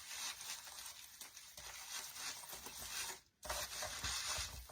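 Rustling and crinkling of artificial pine branches and ornament balls being handled and pushed into place. The sound breaks off briefly just after three seconds in.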